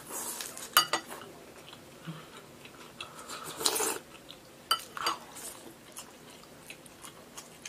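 Metal spoons clinking and scraping against bowls of porridge, a few sharp clinks among soft eating noises, with bites into pan-fried chive pockets.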